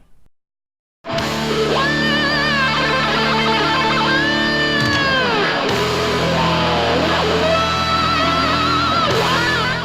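Heavy metal music with guitar, played back through a portable Bluetooth speaker and picked up by a microphone in the room. It starts about a second in, after silence, with bending, wavering lead notes, and fades out near the end.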